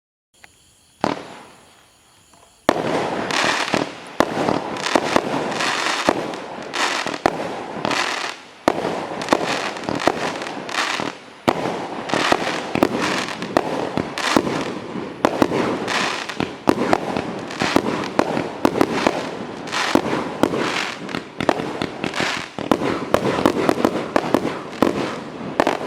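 Celtic Crazy Crackles 25-shot firework cake going off. A faint fizzing with a single sharp bang about a second in, then from about three seconds in the shots fire one after another and burst into dense, continuous crackling, with sharp reports standing out through it.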